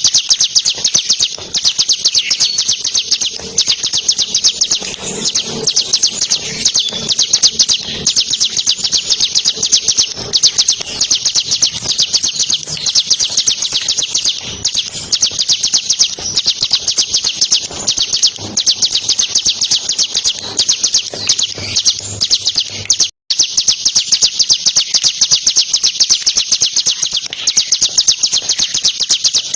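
Bar-winged prinia (ciblek kristal) singing a loud, fast, unbroken trill of high, sharp notes that runs on without let-up ('ngebren'). The trill breaks off for a moment about two-thirds of the way through.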